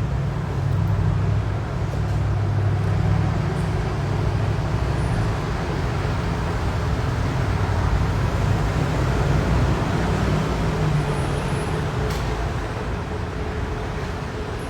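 Road traffic noise: a steady low rumble with an even hiss, easing slightly in the second half.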